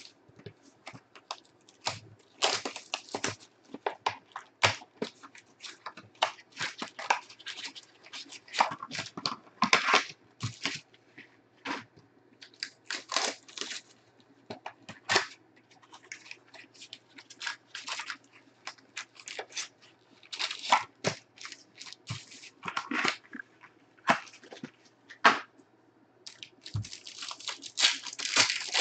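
Foil trading-card pack wrappers crinkling and tearing as the packs are handled and ripped open, in many short, irregular crackles.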